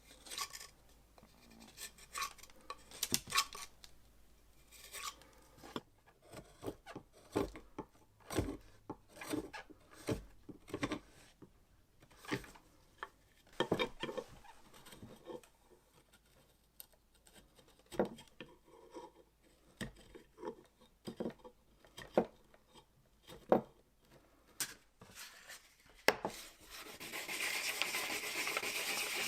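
A carving knife shaving an oak axe handle in short, separate scraping strokes. About three seconds before the end it gives way to continuous sanding of the handle, a steady, louder hiss.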